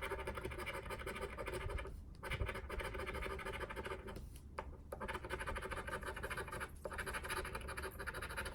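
Fingernail rapidly scratching the latex coating off a lottery scratch-off ticket, in quick strokes with a few short pauses.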